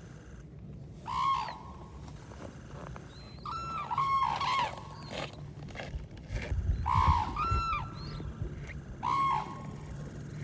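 Red-crowned cranes calling: about half a dozen loud, clipped, ringing calls, some overlapping at two pitches. A brief low rumble comes about seven seconds in.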